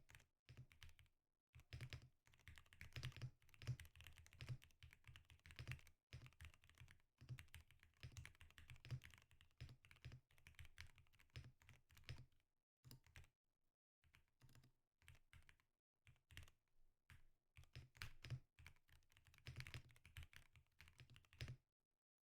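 Typing on a Zuoya GMK67 mechanical keyboard with Cherry MX Hyperglide Black linear switches, unlubed and without tape mod, under PBT XDA-profile keycaps. Fast runs of key presses, sparser for a few seconds in the middle, stopping just before the end.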